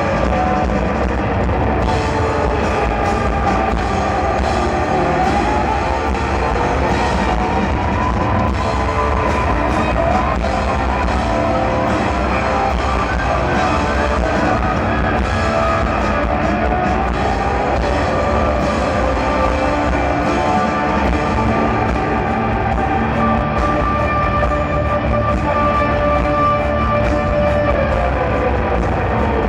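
Loud live heavy rock played through a concert PA: distorted guitar and drums, with long held notes that slide slowly up and down in pitch.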